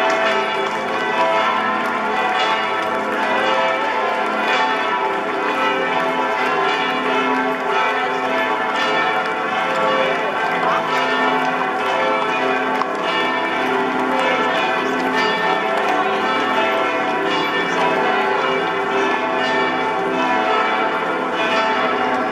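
Church bells pealing, several bells ringing together without a break.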